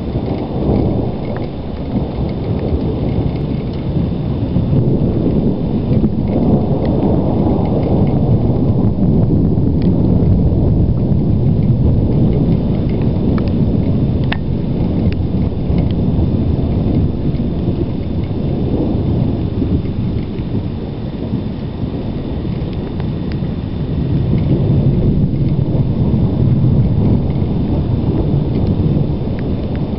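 Distant thunder in a continuous low rolling rumble that swells louder twice, a few seconds in and again near the end.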